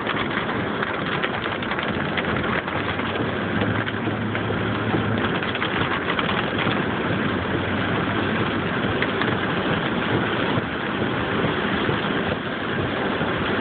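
Car driving on a rain-wet road, heard from inside the cabin: a steady engine hum under a constant hiss of tyres on wet pavement.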